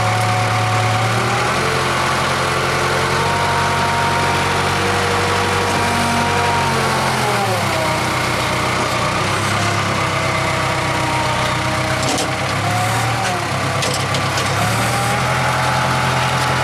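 Case 580K backhoe's diesel engine running as it digs, its note dipping and rising again several times as the load changes.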